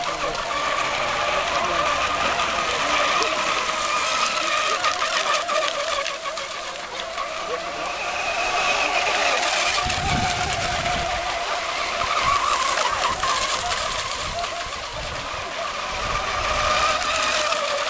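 Several radio-controlled racing hydroplane model boats running flat out in a race, their small engines blending into a steady high-pitched whine that wavers slightly as they circle the course. A few low rumbles come and go around the middle and near the end.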